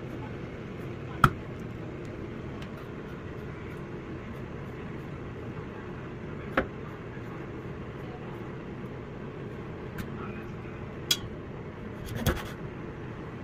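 A knife chopping fish on a cutting board: a few sharp knocks spaced several seconds apart, the loudest about a second in and a quick cluster near the end, over a steady low hum.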